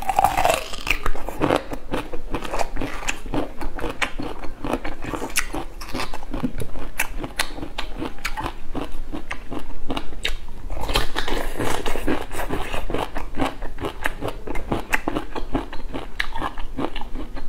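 A person biting and chewing a thick, large bamboo shoot, a dense run of crisp crunching clicks throughout, busiest near the start and again about two-thirds of the way in.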